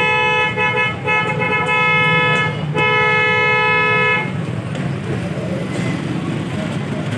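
A two-tone vehicle horn honking in long blasts with short breaks, stopping about four seconds in, over a steady low rumble.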